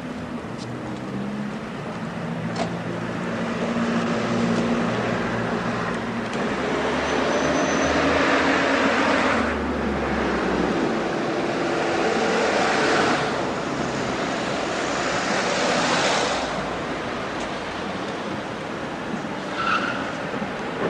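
An engine running, with a rushing noise that swells about four seconds in and eases off again near sixteen seconds.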